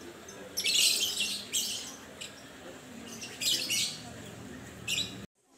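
Birds chirping in about five short, high-pitched bursts, over a faint murmur of voices. The sound cuts off suddenly near the end.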